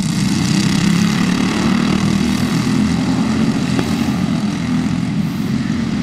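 A pack of racing karts powered by Briggs & Stratton Animal single-cylinder four-stroke engines running at speed, a steady, dense drone of several engines together.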